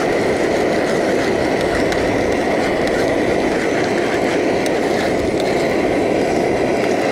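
Salo, onion and ketchup frying in a pot: a steady, loud sizzle with small crackles throughout.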